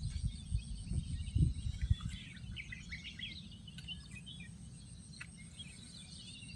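Small songbirds chirping and twittering in short, scattered calls. Low thumps come in the first two seconds and then stop.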